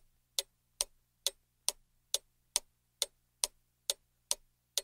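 Clock ticking sound effect, evenly paced at a little over two ticks a second, over a faint steady low hum. It counts down the thinking time for a quiz question.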